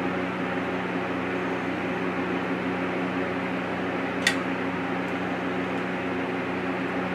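Steady mechanical hum with a low drone, and a single sharp click a little past the middle.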